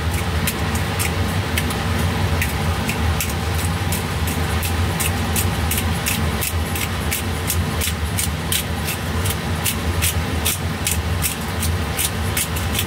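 Black pepper grinder twisted by hand, grinding peppercorns in a quick run of crunching clicks, about three or four a second. A steady low hum runs underneath.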